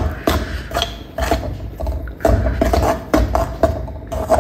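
Flat steel spatula scraping and knocking around an aluminium kadai while stirring thick melted jaggery, in repeated strokes about two to three a second, with a short lull midway.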